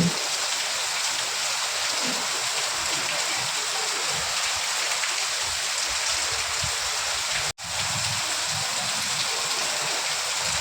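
Steady, even rain hiss that drops out abruptly for a split second about seven and a half seconds in.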